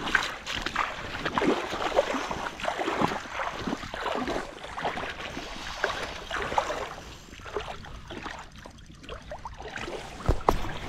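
Hooked trout splashing and thrashing in shallow water at the edge of a lake as it is drawn in to be beached. The irregular splashes ease off in the second half, and a single thud comes near the end.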